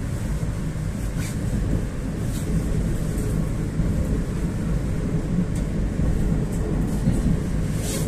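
Interior running noise of a Moskva 2.0 metro car travelling at speed: a steady low rumble of wheels on rail, with a few short clicks, the sharpest near the end.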